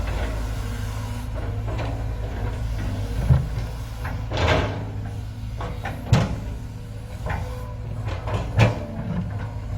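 An excavator's diesel engine runs steadily at work, with four clunks a second or two apart, one of them a longer, rougher scrape.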